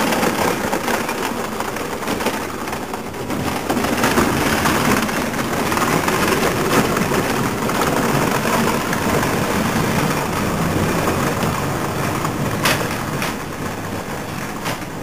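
A 1/6 scale radio-controlled Marder III tank running, its drive and tracks making a steady mechanical noise as it climbs a wooden plank ramp, fading as it moves away. There are two sharp knocks a little before the end.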